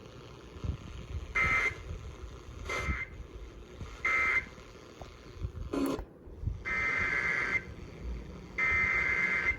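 Emergency Alert System SAME data bursts heard over a radio receiver with background hiss. Three short, buzzy two-tone bursts close the flash flood warning as its end-of-message code. A click near six seconds follows, then about one-second header bursts of the same screech that open the next alert.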